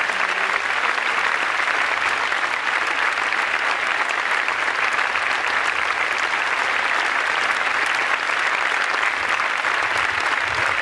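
Large outdoor crowd applauding steadily, many hands clapping at once.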